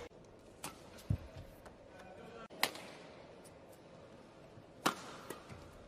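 Badminton rally in an indoor hall: sharp cracks of rackets striking the shuttlecock, the loudest about two seconds apart, with a short low thud about a second in, over steady hall ambience.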